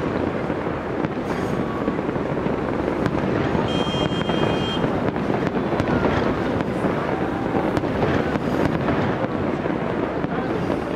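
Aerial fireworks bursting continuously, a dense mix of booms and crackles, with a brief high whistle about four seconds in.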